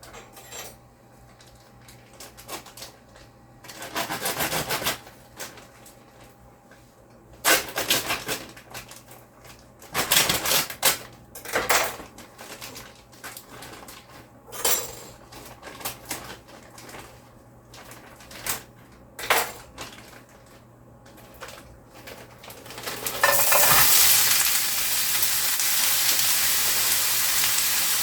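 Clatter and knocks of kitchenware and packaging handling, then near the end a loud, steady sizzle starts as frozen stir-fry vegetables go into hot oil in the pan.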